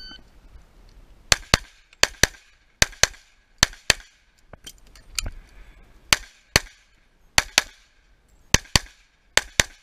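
Pistol fired in quick pairs of shots, about eight double-taps in eight seconds. The first pair comes just over a second after the tail of the shot timer's start beep, and a few fainter shots fall in the middle.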